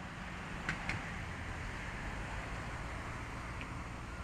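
Outdoor airfield ambience: a steady low rumble with an even hiss, and a brief sharp click just under a second in.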